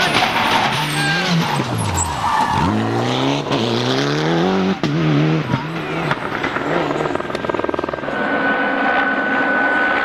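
Mitsubishi Lancer Evolution rally car's turbocharged four-cylinder engine at racing speed. The revs fall away about a second in, then climb hard for two seconds before dropping sharply at a gear change and rising again. A fast rattling stretch follows about seven seconds in, then a steady high whine.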